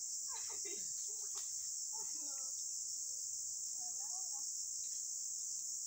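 Steady, high-pitched chorus of calling insects, with faint voices a few times underneath.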